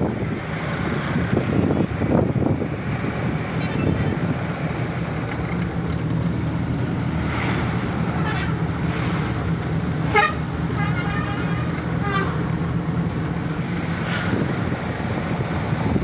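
Steady road and engine noise of a car driving in traffic, heard from inside the moving car, with vehicle horns tooting several times in the middle part, the longest a few seconds after the middle.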